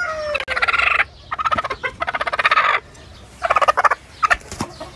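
Broody hen growling in several short, fast-pulsing bursts as a hand comes near: the threat growl of a broody hen defending her nest.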